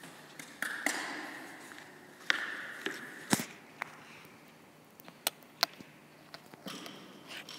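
Scattered sharp knocks and clacks in a large gym hall, with a short hissing rustle after some of them; the loudest come about a third of the way in and two close together past the middle.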